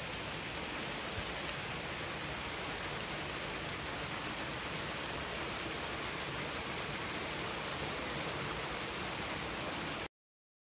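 Steady, even rushing ambient noise with no distinct events, cutting off abruptly near the end.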